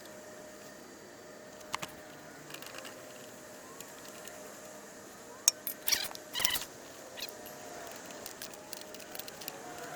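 Scattered faint metallic clinks and knocks of parts and tools being handled on a bulldozer's track idler assembly, with a short cluster of louder knocks about halfway through.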